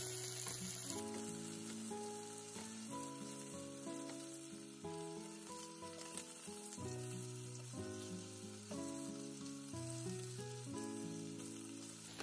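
Chicken thigh pieces sizzling in oil in a frying pan, skin-side down to crisp the skin, with a steady frying hiss. Soft background music plays over it.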